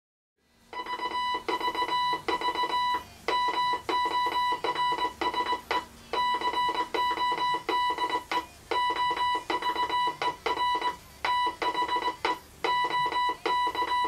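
Morse code sent as a buzzy high-pitched tone, switched on and off in dots and dashes at one unchanging pitch. A faint steady low hum runs underneath and stops about halfway through.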